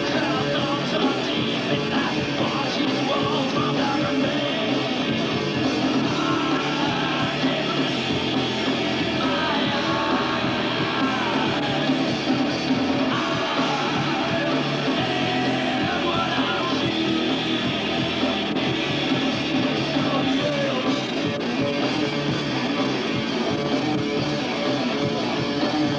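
Rock band playing, with a singer's voice over the instruments.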